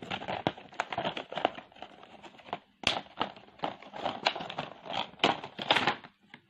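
Plastic blister packaging and cardboard insert of a Beyblade toy crinkling and crackling as they are opened by hand: a rapid, irregular run of clicks with a brief pause near the middle.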